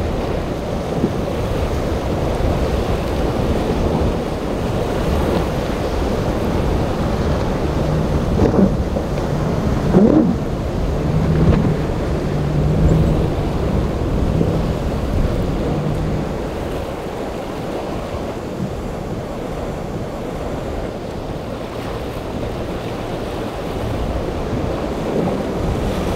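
Wind on the microphone over surf and breaking wakes. From about a third of the way in to past the middle, a center-console boat's outboard engines run past, with two short rises in pitch and a steady drone.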